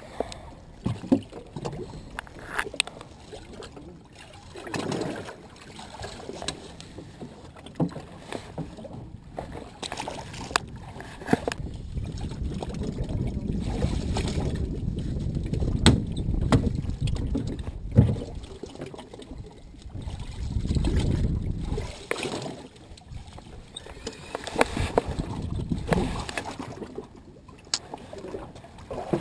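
A drifting fishing boat at sea: water slapping the hull and low rumbling swells of wind on the microphone, with scattered clicks and knocks of rod, reel and deck gear being handled.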